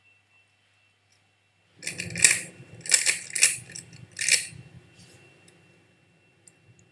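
A Rubik's cube being turned fast, a plastic clatter of clicks in several quick bursts that starts about two seconds in and lasts about three seconds.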